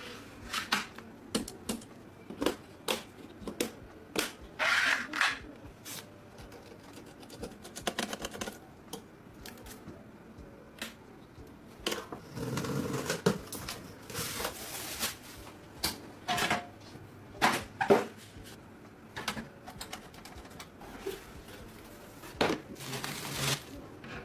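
Irregular plastic and metal clicks, taps and short rustles of computer parts being handled and fitted together.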